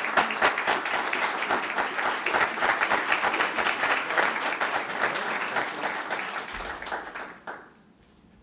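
Audience applauding, the clapping dying away about three-quarters of the way through.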